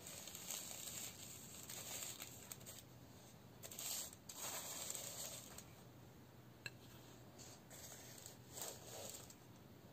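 A spatula scraping under cookies on an aluminium-foil-lined baking tray, with faint crinkling of the foil, in several short scrapes and a small click about two-thirds of the way through.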